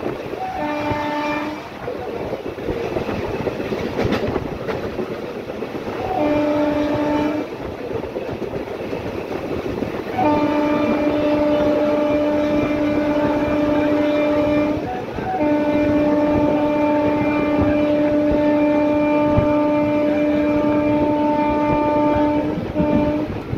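Train horn sounding repeatedly over the steady rumble of a running train: two short blasts, then two long held blasts of several seconds each, and a brief final toot.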